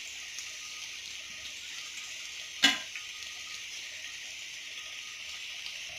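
Onions and ginger-garlic paste sizzling steadily in hot oil in a pan, with one sharp knock about two and a half seconds in.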